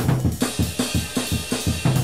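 Background music led by a drum kit: a quick, busy run of bass-drum and snare hits over a low bass line.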